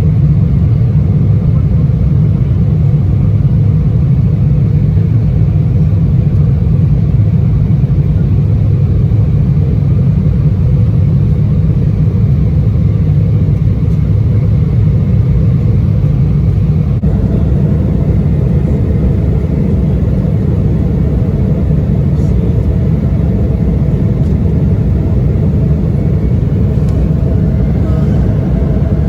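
Steady, loud cabin roar of an Embraer 175 regional jet in flight shortly after takeoff: the noise of its GE CF34 turbofan engines and the airflow, heaviest in the low range. A little over halfway through the sound shifts slightly and a faint steady hum comes in.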